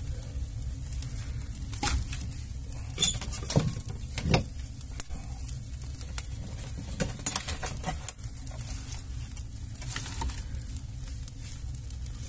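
Wood fire of split kindling burning in a firebox: a steady low rumble of the flames, broken by sharp crackles and pops every second or few.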